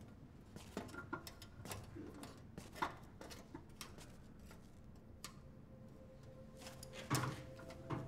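Scattered footsteps on a concrete floor, then sparse metallic clinks and knocks of a tool on the underside of a vehicle, the loudest knock about seven seconds in. A soft, held music chord comes in near the end.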